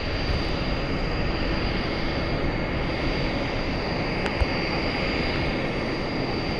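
CT-114 Tutor jets' engines running steadily, a constant rush of noise with a high whine held on one pitch. A single sharp click sounds about four seconds in.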